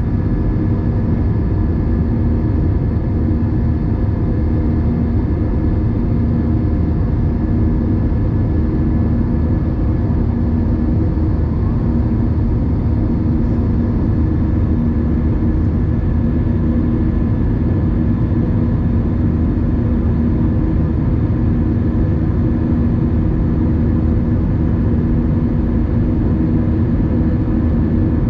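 Airbus A320 cabin noise in the climb after takeoff, heard inside the cabin beside the wing: a steady drone of jet engines and airflow, with a deep rumble under a few held tones.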